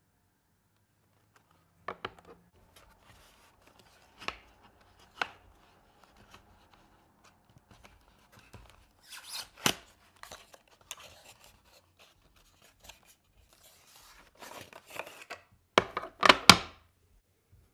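Clear plastic N scale train-car cases and cardboard box sleeves handled on a wooden table: scattered clicks and knocks, a scraping rustle as a case slides out of its sleeve, and a cluster of loud clacks near the end as cases are set down.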